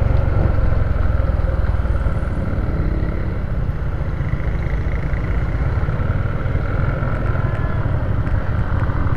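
Motorcycle riding along a road: a steady, loud rumble of wind on the microphone over the engine running.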